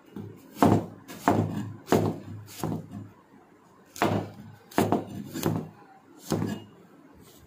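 Meat cleaver chopping through an apple and striking the table. There are about eight sharp thunks, roughly one every two-thirds of a second, with a short pause near the middle.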